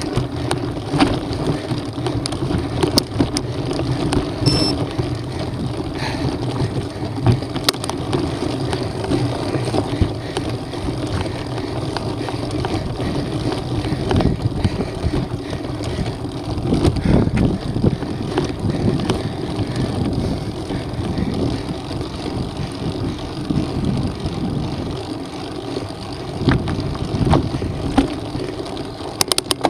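Mountain bike rolling over a rocky dirt trail: a steady rumble of knobby tyres on loose stones and dirt, with scattered sharp clicks and knocks from the bike, and wind on the microphone.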